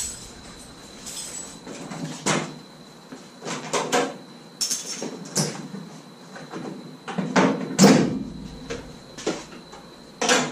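Scattered knocks and clunks as a car's hood is unlatched and lifted, with one loudest clunk near the end.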